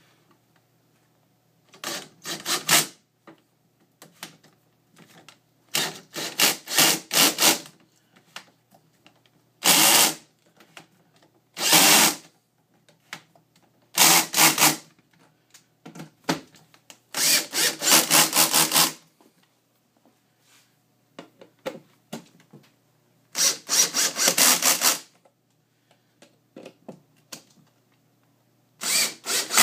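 Power drill driving hinge screws into a cabinet door, run in about eight short bursts of half a second to a second and a half each, with pauses between.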